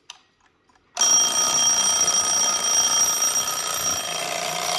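Antique Junghans mantel alarm clock's bell alarm starting about a second in and ringing continuously and loudly, the hammer striking the bell rapidly after the time hands are turned past the set alarm time.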